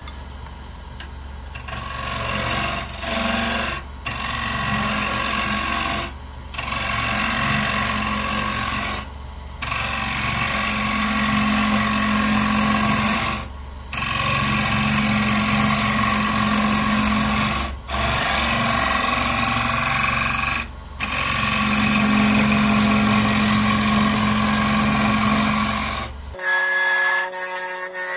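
Wood lathe spinning an ash bowl blank while a carbide turning tool cuts into it: a loud, rough cutting and scraping over the steady hum of the lathe. The sound breaks off briefly several times. Near the end the hum stops and the sound changes to a quieter one with a steady whistle-like tone.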